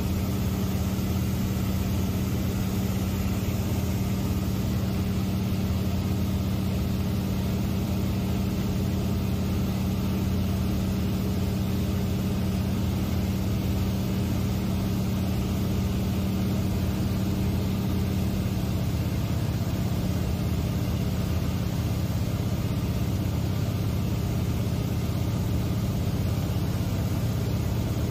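Seaplane engine and propeller droning steadily in cruise, heard from inside the cabin, with a slight shift in its tone about two-thirds of the way through.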